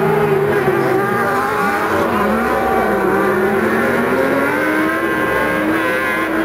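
Several kartcross buggies racing on a dirt track, their high-revving motorcycle engines overlapping and rising and falling in pitch as they accelerate and lift off.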